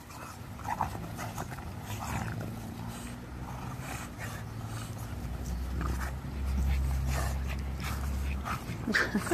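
Two English bulldogs play-wrestling, making dog noises at close range, with a low, steady rumble from about five to eight and a half seconds in.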